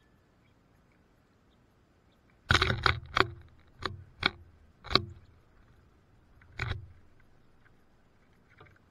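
A quick cluster of sharp knocks and scrapes about two and a half seconds in, a few more single knocks over the next two seconds and one more near seven seconds: small birds landing and hopping on the wooden feeder.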